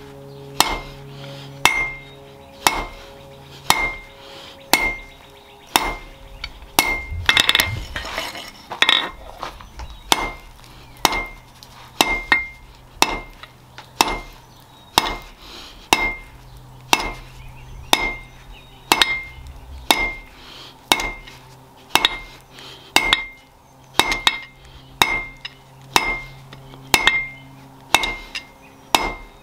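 Blacksmith's hammer striking steel on an anvil in a steady rhythm of about four blows every three seconds, each blow with a short bright ring. A quicker flurry of lighter taps comes around seven to nine seconds in.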